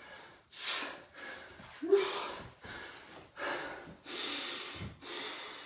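A man breathing hard and fast after a round of burpees, about seven heavy breaths, roughly one a second. A short voiced gasp comes about two seconds in.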